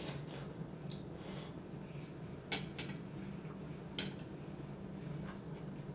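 Eating noodle soup: a brief slurp of rice noodles at the start, then a few light clicks of chopsticks and a spoon against a ceramic bowl, about a second or so apart, over a faint low hum.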